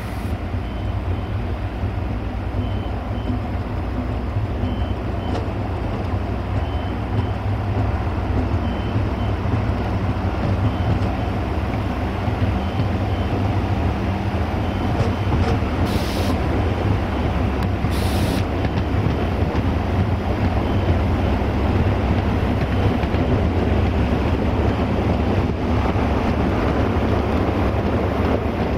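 A diesel railcar running along the line, heard from on board: a steady low engine drone mixed with wheel and rail noise. There are two short hisses, about 16 and 18 seconds in.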